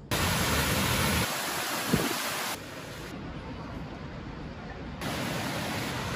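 Steady rushing water, as of a fast river or spring, heard in three stretches that jump in level at cuts about two and a half and five seconds in, with a brief thump about two seconds in.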